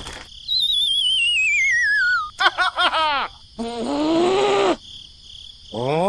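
Cartoon sound effects: a wobbling whistle sliding down in pitch for about two seconds, then a quick run of squeaky falling chirps and a short squeaky cartoon voice, with a rising sweep near the end, over a steady high-pitched background tone.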